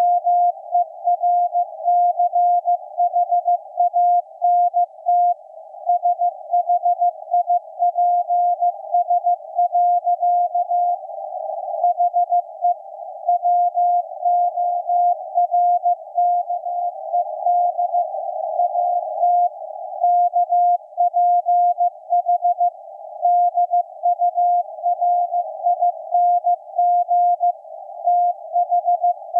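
Morse code from maritime coast station KPH received on shortwave, 12808.5 kHz, in CW mode: a tone of about 700 Hz keyed rapidly on and off in dots and dashes. Band static fills the gaps between characters through a narrow CW filter, and it grows louder a few times.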